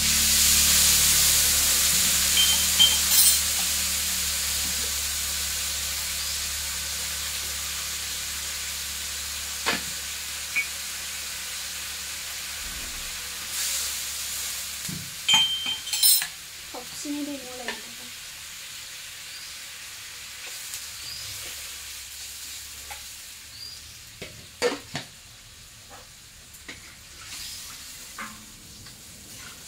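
Pork and potatoes frying in hot oil in a metal wok: the sizzle jumps up loudly at the start, as when food goes into the oil, then slowly dies down. A metal spatula clinks against the wok a few times as the food is stirred.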